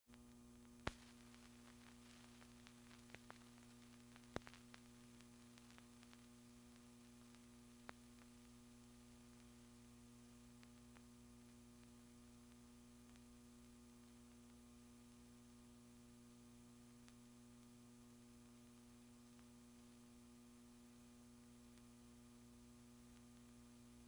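Near silence: a steady electrical mains hum, with a few sharp clicks in the first eight seconds.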